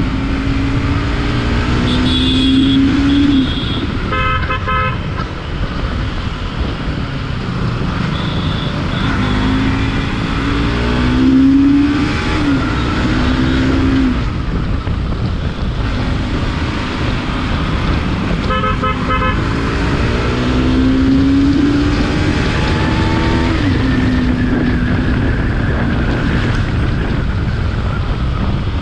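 Bajaj Pulsar NS200's single-cylinder engine accelerating through the gears three times, its pitch rising and dropping back at each shift, over steady road noise. A vehicle horn gives a quick run of short beeps about four seconds in and again about two-thirds of the way through.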